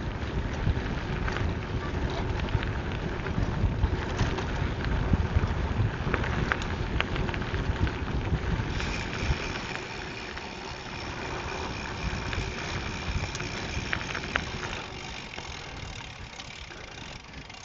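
Gravel bike rolling over a rough dirt-and-gravel trail: tyre rumble, wind on the microphone and scattered rattles and crunches. About halfway through a steady high-pitched buzz joins in and the rumble eases off.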